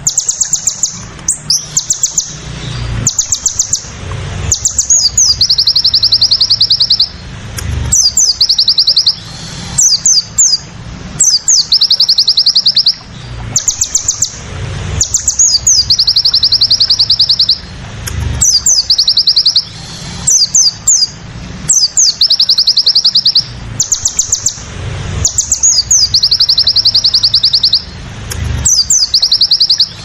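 Olive-backed sunbird (sogon) song from a looped masteran training recording: rapid, high trill bursts of a second or two, the 'tembakan', alternating with quick downslurred chips, over and over.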